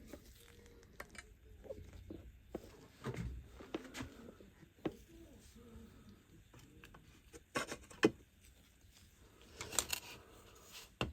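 Hands working on a car door trim and speaker: scattered clicks, taps and knocks with short rustles, with a few sharper knocks about two-thirds of the way through and near the end.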